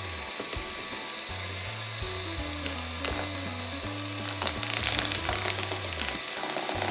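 Philips electric hand mixer running, its beaters churning thick, sticky slime, with a cluster of clicks about two-thirds of the way through. The mixer is labouring under the heavy load, which the owner fears will burn it out. Background music with a stepping bass line plays over it.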